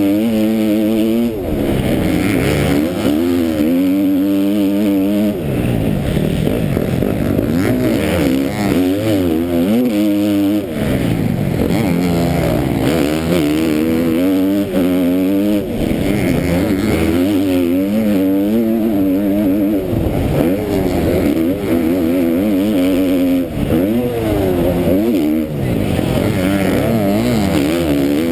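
KTM motocross bike's engine heard up close from the rider's helmet, revving hard. Its pitch climbs and drops again and again as it accelerates, shifts and backs off through the corners.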